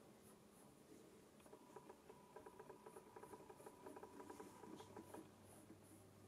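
Faint, quick scratching strokes of a colored pencil sketching hair lines on a varnished doll head, starting about a second and a half in.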